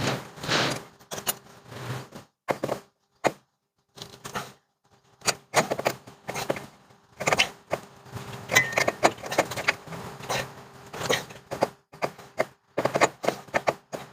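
Hand tools working on metal under a truck's front end: irregular clicks, taps and knocks, some in quick clusters, with a short lull near the middle.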